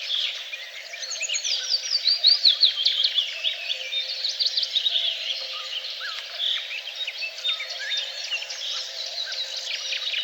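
Several songbirds singing at once, with overlapping chirps and trills. About a second in, one bird gives a fast run of notes falling steadily in pitch. A steady background noise runs underneath.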